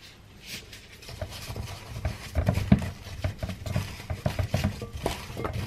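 Baby aubergines being rubbed and tossed by hand with cumin and salt in a glass bowl: rubbing with irregular soft knocks of the aubergines against the glass, starting about a second in, with one sharper knock near the middle.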